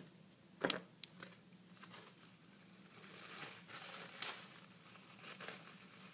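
Thin plastic shopping bag crinkling and rustling as hands press blue painter's tape onto it and lift it, with a few sharp crackles about a second in and again around four seconds.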